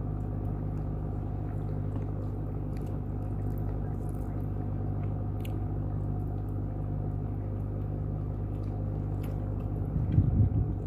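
Chewing and biting while eating, heard as scattered small sharp clicks over a steady low hum. A louder low rumble comes near the end.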